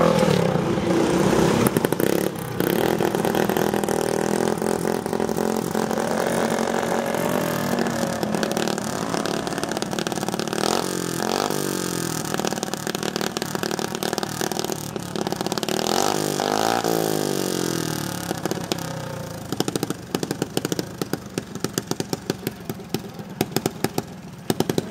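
Several small minibike engines racing past at once, their pitch rising and falling and crossing as they go by, then fading away near the end.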